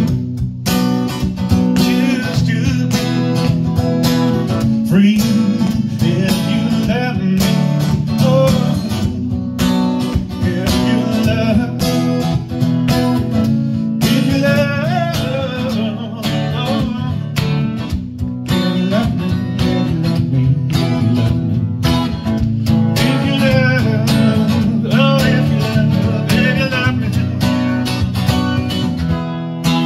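Steel-string acoustic guitar strummed in a steady rhythm, with a man's voice singing over it in stretches.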